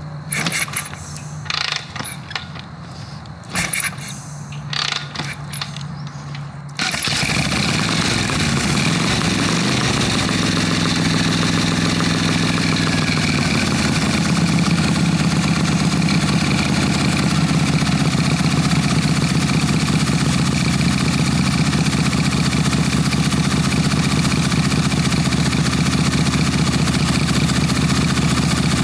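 Harley-Davidson Evolution Big Twin V-twin, fed by a newly fitted Lectron HD carburetor, being kick-started. A few separate sharp kicks and pops come first, then it catches about seven seconds in, revs unevenly for a few seconds and settles into a steady, fast idle, which the owner finds he cannot bring down with the idle screw.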